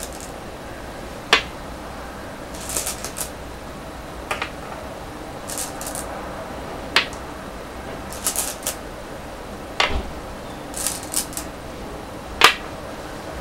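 Go stones being set on a wooden go board, one sharp clack about every three seconds, five in all. Between the clacks, stones rattle briefly in the bowl as the next one is picked out.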